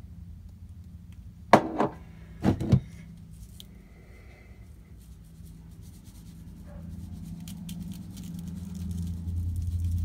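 Spice shaker bottles being handled: two pairs of sharp clicks and knocks about a second apart as one shaker is set down and another is taken up and opened. A low hum grows louder near the end.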